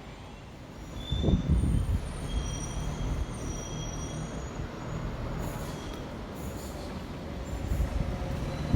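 Train running through the station: a low rumble that swells about a second in and carries on, with a few short, thin high-pitched squeals above it.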